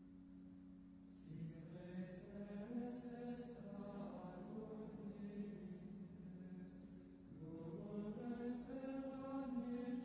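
Church singing: a voice enters about a second in over a held accompaniment chord, and the sung line carries on with a short dip partway through.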